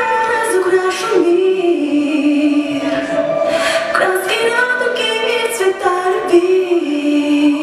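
Music with a female voice singing a slow melody, holding long notes and moving between them.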